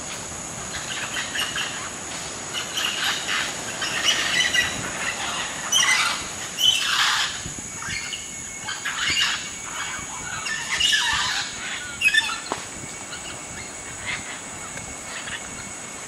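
Scarlet macaws calling in a string of harsh, raspy squawks over the first twelve seconds or so, the loudest about halfway through.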